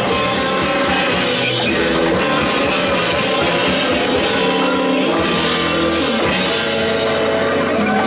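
Live emo rock band playing: electric guitars and a drum kit, heard from right beside the drums.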